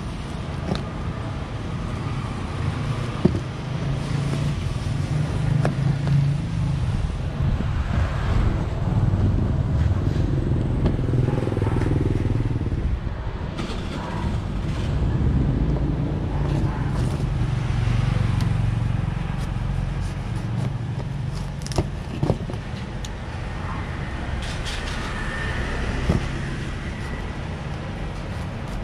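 Road traffic rumbling steadily, swelling and fading as vehicles pass, with a few sharp knocks of a knife cutting into a durian's thick spiky husk.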